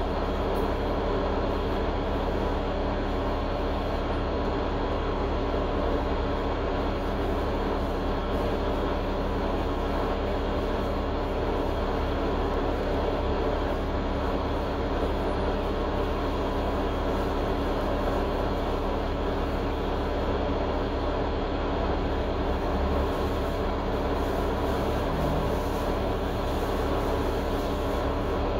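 Cummins L9 diesel engine of a 2021 Gillig Low Floor transit bus running steadily, an even hum with no rise or fall in engine speed.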